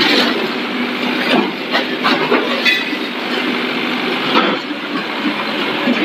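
Mattson ML530 mini tracked skid steer loader running and driving over demolition rubble, its engine running steadily under a rattle of tracks and loose debris, with several sharp clanks.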